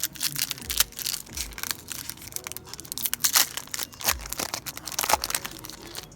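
A foil trading-card pack wrapper being torn open and crinkled: a dense run of crackles that thins out near the end.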